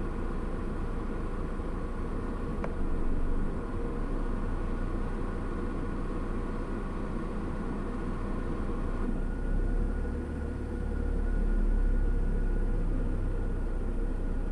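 Steady hum of a vehicle's idling engine heard from inside its cabin, with a deeper rumble swelling for a few seconds about ten seconds in.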